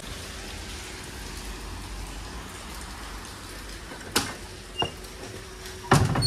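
Heavy rain falling steadily on the street. A sharp knock comes about four seconds in, and near the end there is a clatter of loud knocks as the wooden louvred shutter is handled.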